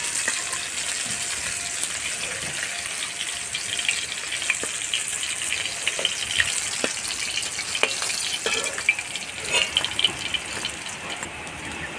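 Hot mustard oil sizzling steadily in a wok after fish steaks have been fried in it, with a few light clicks from a metal spoon.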